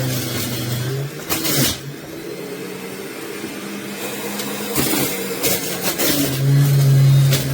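An electric juicer's motor runs with a steady low hum that drops away about a second in and comes back strongly near the end. Sharp cracks and knocks break in several times as produce is crushed.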